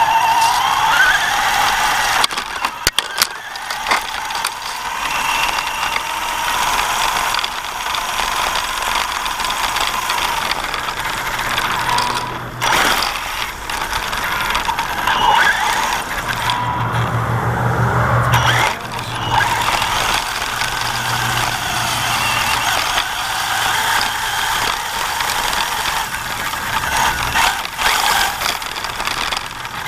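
Axial Yeti RC car's electric motor and drivetrain whining, rising and falling in pitch with the throttle, with scattered clicks and a low hum for a couple of seconds past the middle. The drivetrain has a squeaky bearing and a rubbing noise, which the owner thinks came from a hit on a tree with the front left tire.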